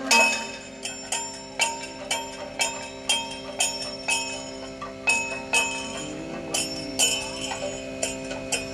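Kathakali time-keeping metal percussion, the bell-metal gong and small hand cymbals (chengila and ilathalam), struck in a steady beat of about two strokes a second, each stroke ringing on, over a steady drone.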